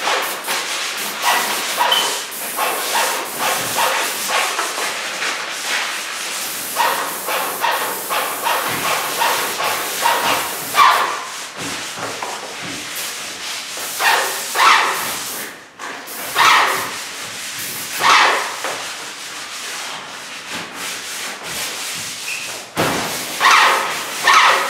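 A dog barking in repeated bursts every second or two, loudest near the end, over the steady hiss of an airless paint sprayer spraying.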